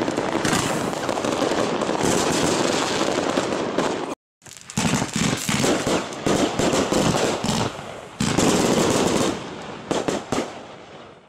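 Aerial fireworks going off in a dense barrage: continuous crackling and rapid bangs, broken by a sudden edit cut to silence about four seconds in, then quick sharp reports resuming, with a louder stretch around eight seconds in and fading toward the end.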